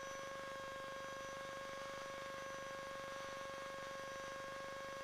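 Steady electrical hum: one mid-pitched tone with fainter higher overtones over a faint hiss, unchanging, as heard on an aircraft intercom or headset audio feed. No plain engine sound stands out.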